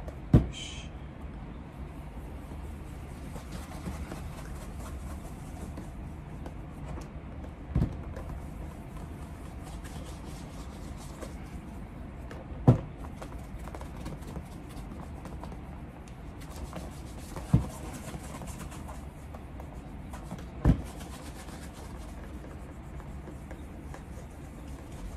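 Cloth rubbing wax onto a leather shoe for a mirror shine: a steady, soft rubbing. It is broken by five sharp knocks: one near the start, then one every few seconds.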